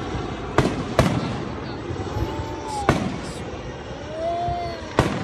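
Aerial fireworks shells bursting, four sharp bangs at uneven gaps. Between them are two long tones that rise and then fall.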